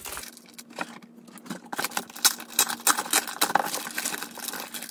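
Clear plastic packaging crinkling and rustling in the hands as a bagged pajama set is pulled out of a cardboard box: a dense run of irregular sharp crackles.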